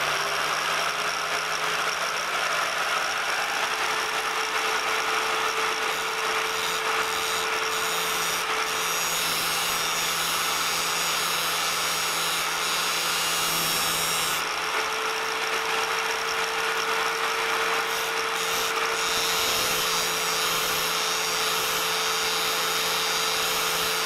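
Electric angle grinder with an abrasive disc running steadily at full speed, a constant whine over a dense hiss, as a twist drill bit is held against the disc to grind its point.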